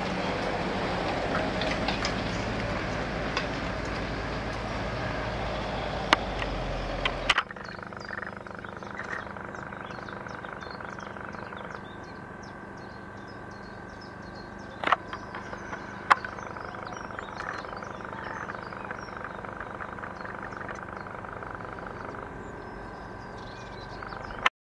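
Outdoor ambience. A loud rushing noise with a few sharp clicks stops abruptly about seven seconds in. After it comes a quieter background of small bird chirps over a faint steady hum.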